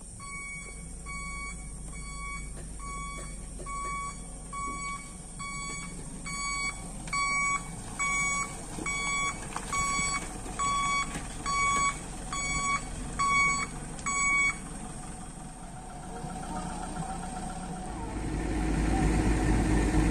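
A heavy machine's reversing/travel alarm beeping at an even pace, about three beeps every two seconds, stopping about 15 seconds in. Near the end an engine comes up loud and runs steadily.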